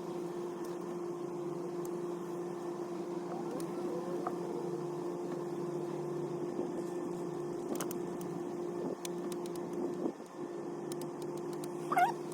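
Steady mechanical hum, even in pitch throughout, with a few faint small clicks. A short high squeak that glides up and down comes near the end.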